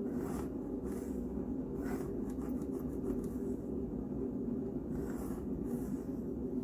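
Pencil drawing lines along a steel ruler on paper: several short scratching strokes over a steady low hum.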